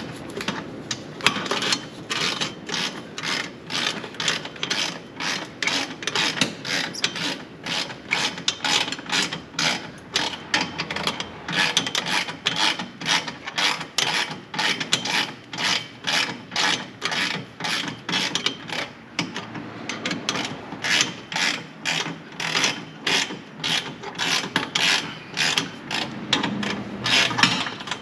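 Hand ratchet wrench clicking in steady back-and-forth strokes, about two to three clicks a second, as a fastener is turned.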